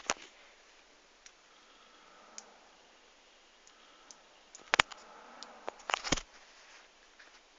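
Sharp clicks and taps of small metal button cells being handled at a homemade electromagnet. There are a few faint ticks, then a loud double click about five seconds in and a quick cluster of clicks a second later.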